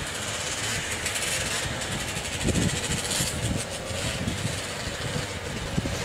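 A row of 440-class two-stroke racing snowmobiles idling steadily together on the start line before the green.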